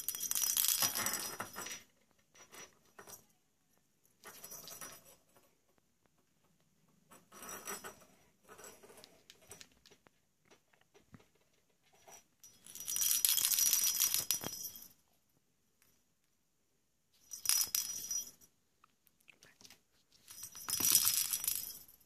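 A bell inside a holed plastic toy ball jingling and rattling in several bursts of one to two seconds as the ball is rolled and shaken, with quiet gaps between.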